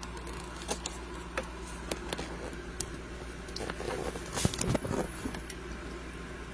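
Potatoes frying in oil in a lidded pan on low heat: scattered pops and crackles over a steady low hum, with a couple of louder knocks about four and a half seconds in.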